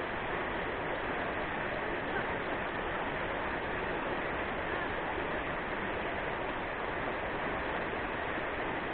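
Steady rush of river water over rapids, an even noise that does not change.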